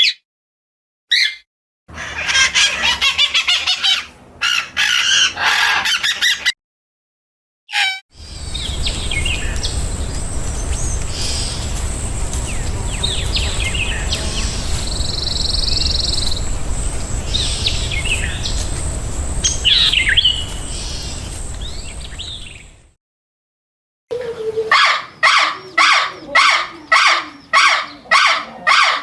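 Bird chirps and calls in several short clips cut one after another. First come a few sharp chirps and a burst of dense chirping. Then scattered bird calls sound over a steady low outdoor rumble with a thin high steady tone, and near the end a bird calls over and over, about twice a second.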